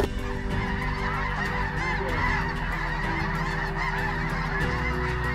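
A large flock of snow geese calling: many high calls overlap into a dense, unbroken chorus.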